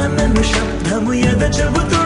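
Telugu film song playing, with a steady beat and melody and no sung words heard.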